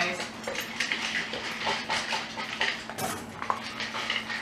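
Schnauzer eating dry kibble from a plastic slow-feed bowl, nosing and licking pieces out from between the raised ridges: irregular clicks and rattles of kibble and muzzle against the plastic, with a sharper knock about three seconds in.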